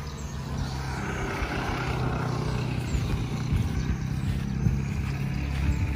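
A road vehicle passing by, its noise swelling about a second in and easing off over the next few seconds.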